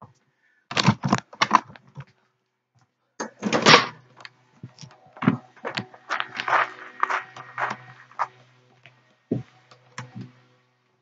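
A series of knocks, clicks and clatters, with a low steady hum through the middle.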